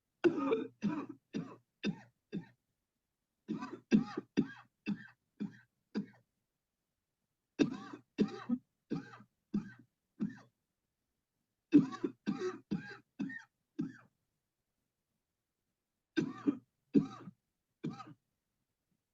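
A person coughing hard and on purpose, in five bouts of rapid coughs, four to seven in each, with pauses of a second or two between bouts. It is deliberate coughing done on cue as part of a cleansing-healing coughing technique.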